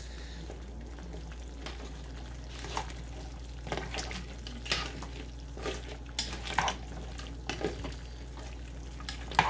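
A spoon stirring gumbo filé into a large pot of gumbo, with short clinks and scrapes against the pot every second or so over a low steady hum.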